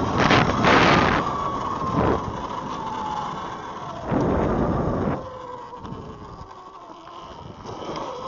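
Wind buffeting the camera microphone while riding an Eride Pro SS 3.0 electric dirt bike, loudest in the first second, with the electric motor's thin whine sliding down in pitch as the bike slows and rising again near the end.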